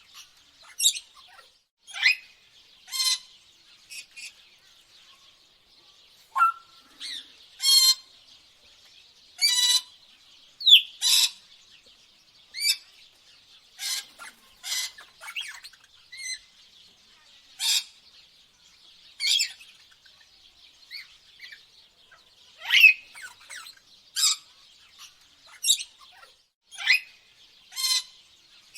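Tropical birds chirping and calling, short sharp calls coming about once a second, over a faint steady high hiss.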